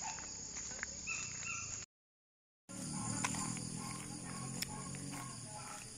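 Countryside morning ambience: birds chirping in short notes over a steady high insect drone. It breaks off into a brief silence about two seconds in, and afterwards a faint low hum runs under the insects.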